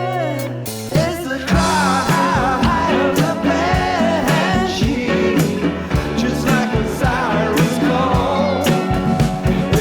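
Background song with a singing voice. About a second in, held chords give way to a drum beat under the vocals.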